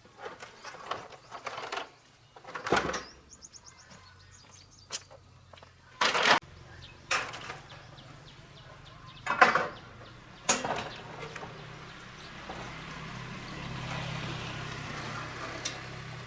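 Separate knocks and clatters of tools and metal parts being handled, about five sharp ones, with a short run of fast light ticks about three seconds in; a low steady hum sets in about twelve seconds in.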